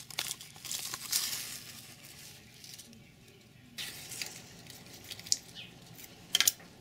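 A knife blade cutting into a cactus stem held in a gloved hand, a crunchy tearing and scraping through the flesh, with a couple of sharp snaps near the end. The stem is hollowed and rotting inside from a cactus longhorn beetle larva. Before that there is a brief rustling noise.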